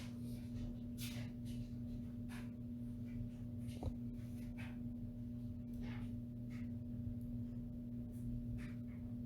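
A steady low electrical hum, with scattered faint clicks and scratchy rustles of light handling and one slightly sharper knock about four seconds in.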